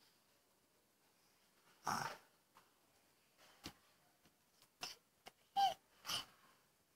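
A nine-month-old baby making short squeals and vocal noises, a few seconds apart, one with a falling pitch, with a few faint clicks in between.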